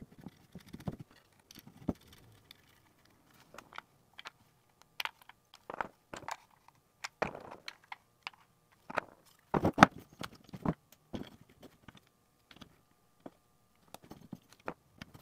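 Scattered clicks, taps and knocks from hands handling a metal guitar-pedal enclosure while it is reassembled: knobs pulled off and refitted and a small screwdriver worked on a knob. The loudest knocks come about ten seconds in.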